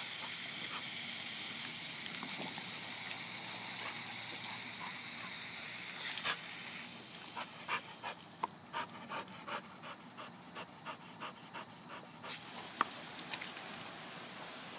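Garden hose water spray hissing steadily, then a dog panting hard in quick, even puffs, about two to three a second, as it snaps at the water jet; the spray hiss comes back about twelve seconds in.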